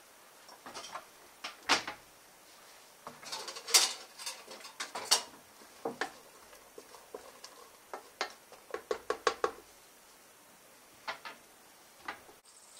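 Wooden spatula stirring and tapping against the inner bowl of a Lentel multicooker: irregular sharp clicks and knocks, with a quick run of about seven taps a little past the middle.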